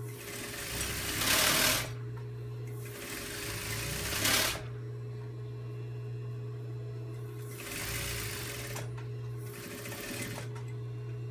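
Industrial sewing machine edge-stitching along the folded edge of a satin hat band in four short runs, the first and loudest about two seconds long. Its motor hums steadily between the runs.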